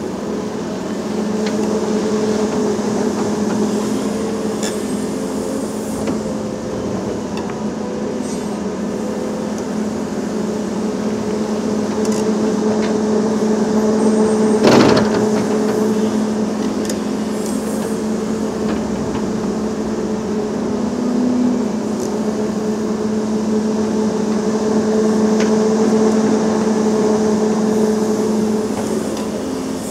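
Volvo EC380E crawler excavator's diesel engine running steadily under load while the bucket works soil, with one loud clank about halfway through.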